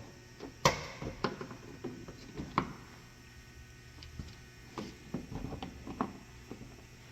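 Plastic push clips being pried out of a plastic engine-bay cover with a clip tool: a string of separate clicks and taps, the sharpest snap a little over half a second in.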